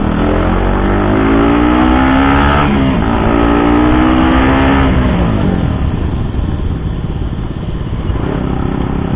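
KTM RC 200 BS6 single-cylinder engine, its stock silencer modified for a louder note, accelerating: the pitch climbs, dips briefly at a gear change and climbs again, then about five seconds in the throttle eases and road and wind noise take over. Heard from inside the rider's helmet.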